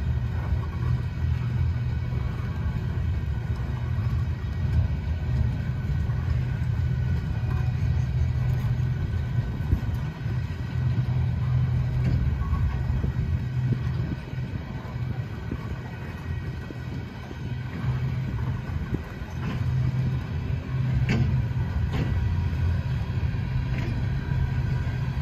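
Freight train of covered hopper cars rolling past: a steady low rumble of steel wheels on the rails, with a few sharp clicks near the end.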